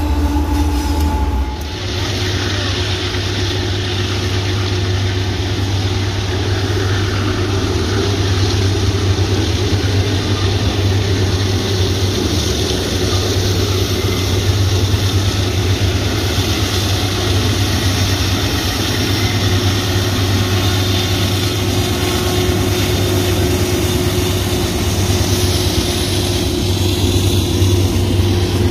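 Diesel-electric freight locomotives passing at close range with their engines running, a steady low drone mixed with the rumble of the train on the rails.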